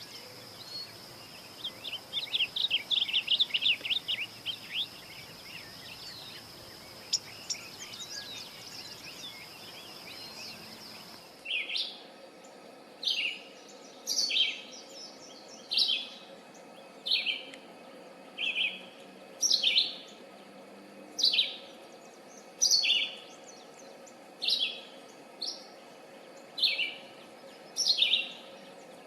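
Songbirds singing: first a fast, chattering, trilling song over a steady high-pitched tone, then, after an abrupt change in the background about eleven seconds in, a bird repeating a short two-part call roughly every one and a half seconds.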